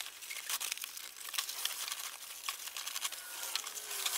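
Foil-faced bubble-wrap insulation (radiant barrier) crinkling and crackling in irregular bursts as it is handled and wrapped around coolant hoses.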